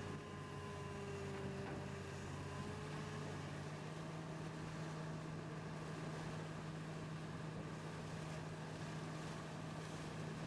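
Excavator's diesel engine running with a steady low hum.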